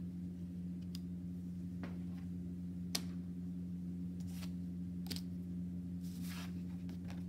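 A card, a wooden pencil and a plastic ruler set down one by one on a hard tabletop: a few light taps and clicks, the sharpest about three seconds in, and a short scrape a little after six seconds. A steady low hum sits underneath.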